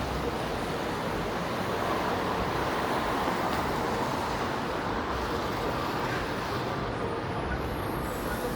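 Steady downtown street traffic: vehicles passing on a rain-wet road, swelling a little around the middle.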